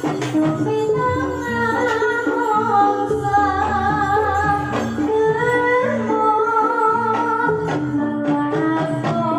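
Live Javanese jathilan music from a gamelan ensemble with a singer's wavering melodic vocal line, played through a sound system.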